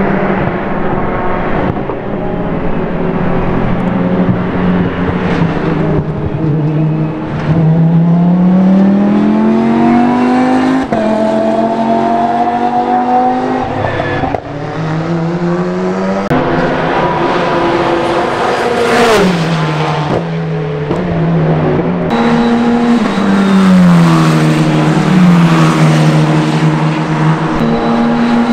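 Racing car engines on track, chiefly a Lamborghini Huracán Super Trofeo Evo 2's V10. It accelerates hard with quick upshifts, each one a sudden drop in pitch, then brakes with a series of blipped downshifts, and this pattern repeats.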